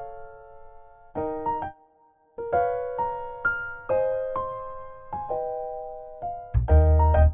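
Background music: a bright electric-piano melody in short phrases, with a low drum beat coming in near the end.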